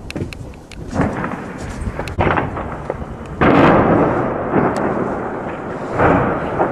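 Combat sounds: about four heavy booms of weapons fire and explosions, each trailing off in a long rolling echo, with a few sharp cracks of gunfire in between.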